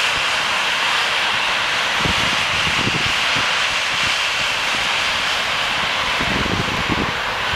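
SJ electric locomotive and its passenger coaches passing at speed, a loud steady rush of wheel and air noise. Low, uneven rumbles come through about two seconds in and again near the end.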